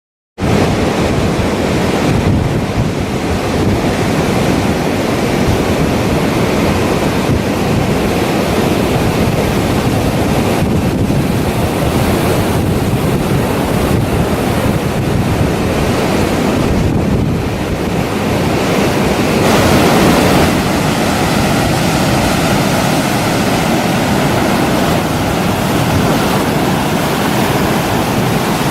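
Strong wind from an approaching typhoon buffeting the microphone, over waves surging at a river mouth, as a loud, steady rush with a stronger gust about twenty seconds in.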